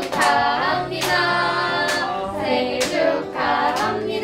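Several voices singing a birthday song together, with hand claps keeping time.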